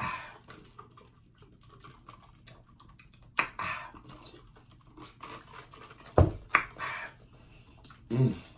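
Sipping a drink through a straw from a paper fast-food cup, with small mouth clicks and breaths. A dull thump about six seconds in, and a short low hum near the end.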